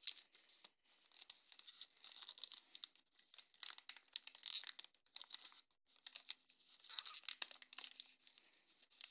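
Paper wrapper of a 2012-13 O-Pee-Chee hockey card pack being torn and crinkled open by hand: a run of crackling rustles with a short pause about six seconds in.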